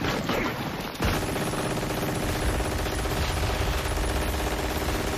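Rapid, sustained machine-gun fire in a war-film battle scene, starting in a continuous burst about a second in.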